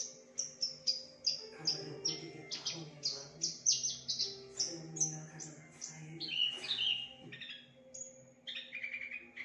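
Javan bush lark (branjangan) singing: a long run of repeated sharp, downward-sweeping high notes, about three a second, changing near the end to lower varied notes and a fast trill.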